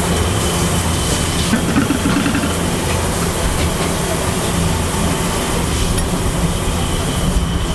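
Steady low hum and rush of a busy commercial kitchen at a gas range where a stone pot of soup is heating, with a few light clinks about two seconds in.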